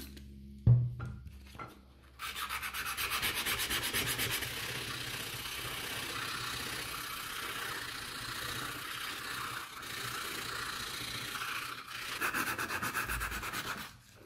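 Sandpaper rubbed by hand in quick back-and-forth strokes over a rusty steel grinder blade, scouring off the rust with a steady rasp. There is a single knock about a second in, and a short pause in the sanding near the end.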